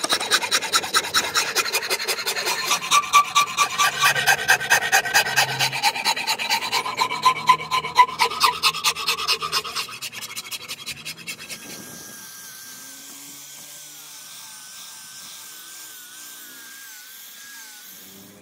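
A machete-like blade chopping into a curly padauk handle blank, a quick run of sharp blows several a second knocking off the saw-kerfed waste. About ten seconds in, the blows die away to a much quieter, steadier sound.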